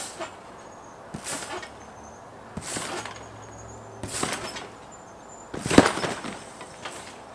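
Trampoline bed and springs sounding with each bounce: five bounces about a second and a half apart, the last and loudest as the jumper pushes off hard into a front flip.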